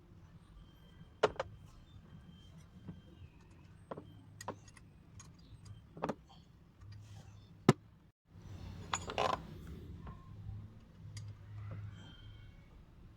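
Small metal hand tools clinking and tapping against a scooter engine's valve gear: a handful of sharp metallic clicks a second or more apart, with a short rattling clatter about nine seconds in.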